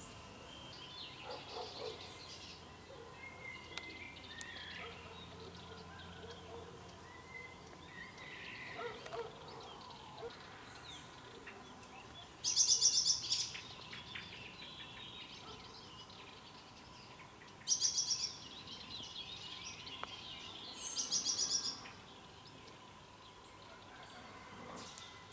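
Birds calling outdoors: three loud calls of rapid high pulses, the first about halfway through and two more a few seconds apart, over fainter scattered chirps and a faint steady tone.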